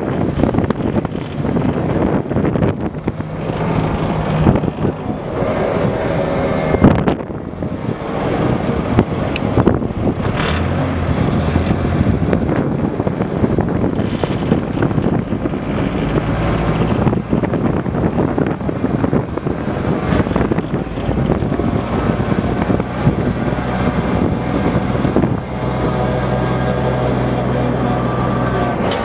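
Type 96 wheeled armoured personnel carrier's diesel engine running as the vehicle drives, heard from atop the hull. The engine note rises and falls with the throttle over a steady rumble of road noise.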